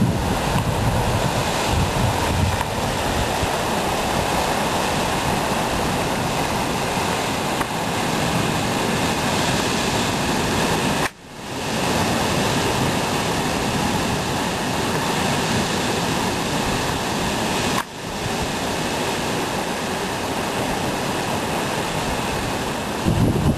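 Heavy sea surf breaking and churning around rocks, a steady rush of white water. The sound cuts out briefly twice, about 11 and 18 seconds in.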